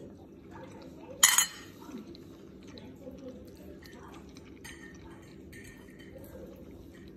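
Cutlery clinking against a plate: one short, loud clink about a second in, then a few faint clicks, over a low steady hum.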